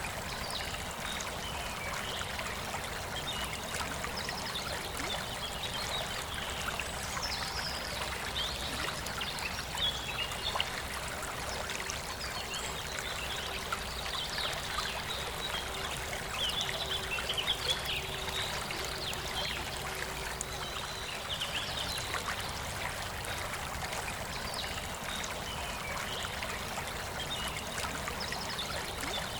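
A river flowing steadily, with birds chirping and singing over it throughout.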